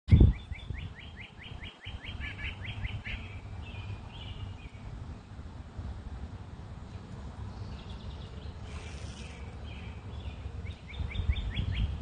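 Downy woodpecker calling: a rapid run of short falling notes, about ten a second, for the first few seconds, softer scattered calls in the middle, and another rapid run near the end. A thump at the very start and a low rumble underneath.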